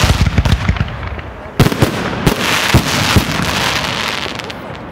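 Aerial fireworks bursting overhead: a run of sharp bangs at the start and again about a second and a half in, with a dense crackling hiss between them that thins out toward the end.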